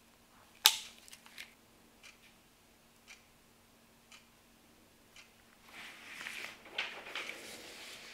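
A sharp click about a second in and a few light ticks. Then, from about six seconds, a rustling rub of gloved fingers and a cloth wiping excess polyurethane sealer along a crack in a plastic dashboard.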